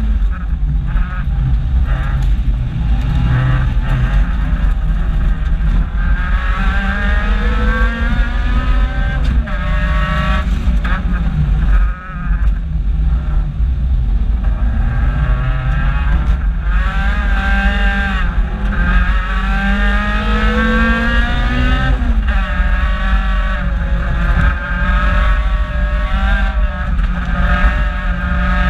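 Toyota AE86's four-cylinder engine heard from inside the cabin, revving hard through the gears: its pitch climbs steadily several times and drops back at each gear change, with a brief lift about midway. A heavy low road rumble runs underneath.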